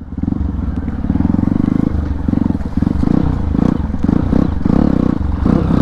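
Hero Impulse rally bike's single-cylinder engine running with an open silencer and open air filter, its note rising and falling with the throttle as it is ridden off-road.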